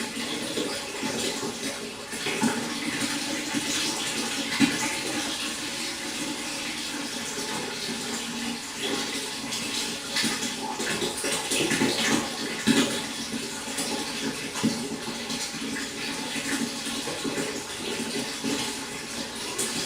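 Pond water running and splashing steadily, with many small irregular splashes throughout.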